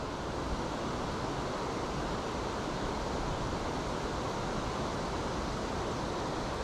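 Steady rush of water pouring over a river weir.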